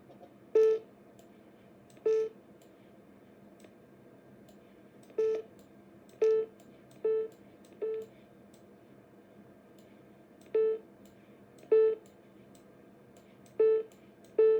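Macintosh SE's built-in speaker sounding its system alert beep ten times, each a short beep at the same pitch, triggered at uneven intervals. The restored machine is working and its sound output is functional.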